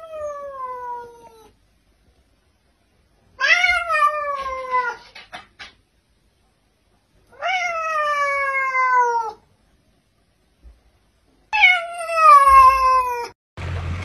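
Domestic cat meowing: four long, drawn-out meows about four seconds apart, each starting high and sliding down in pitch.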